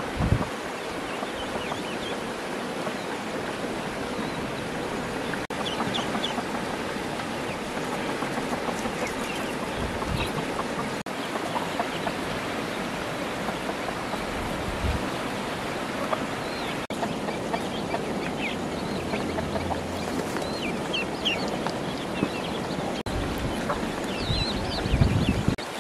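Poultry clucking, with short high peeps of young birds scattered through, thickest near the end. A low thump near the end.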